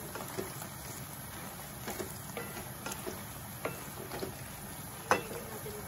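Shrimp sizzling in garlic butter in a frying pan while a wooden spatula stirs them, with light scrapes and taps of the spatula against the pan, the sharpest about five seconds in.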